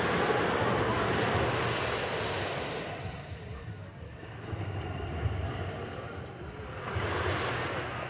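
Small waves breaking and washing up a sandy beach. The surf is loudest over the first couple of seconds, eases off, then swells again about seven seconds in, with wind rumbling on the microphone.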